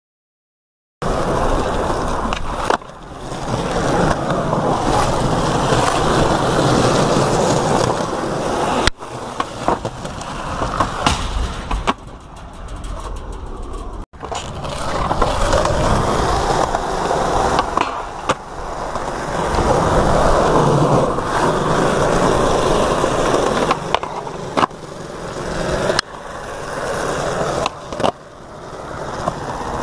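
Skateboard wheels rolling over pavement, starting about a second in and swelling and fading from clip to clip, with sharp clacks of the board popping and landing.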